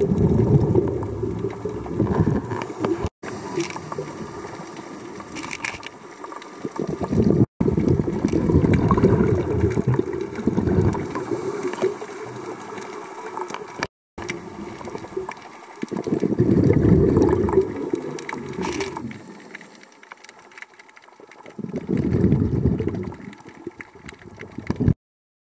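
A scuba diver's exhaled bubbles bubbling and gurgling past an underwater camera in bursts of two to four seconds, one per breath, with quieter gaps between. The sound cuts off suddenly near the end.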